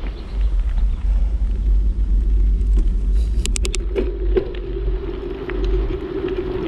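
Wind buffeting the microphone of a camera mounted on a moving mountain bike, a steady low rumble, with tyres rolling on a paved path. There is a quick run of clicks about three and a half seconds in.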